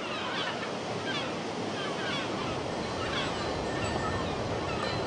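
Sea surf and wind washing steadily, with many short, high bird calls over it, like seabirds on a shore.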